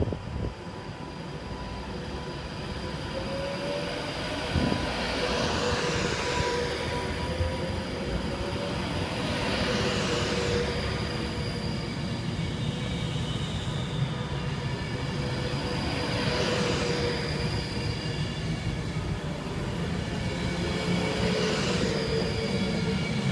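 Class 390 Pendolino electric train rolling slowly past, running steadily with a faint electric whine and a rushing hiss that swells and fades about every five seconds as the coaches go by.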